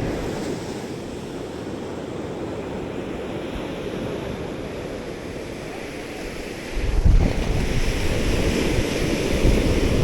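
Surf washing on a beach, with wind buffeting the microphone; the rushing gets louder about seven seconds in.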